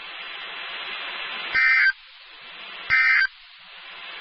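NOAA Weather Radio sending the EAS/SAME end-of-message signal: short bursts of two-tone digital data, about 1.3 s apart, with radio hiss between them. It marks the end of the warning broadcast.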